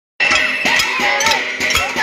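Saucepans and pots being beaten in a pot-banging protest: dense, irregular metallic clanging with a lingering ring. It starts abruptly just after the beginning.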